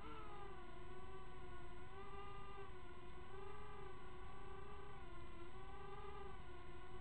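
Quadcopter's motors and propellers whining in flight: a steady buzzing tone whose pitch rises and falls gently every second or two as the throttle is adjusted, over a low rumble.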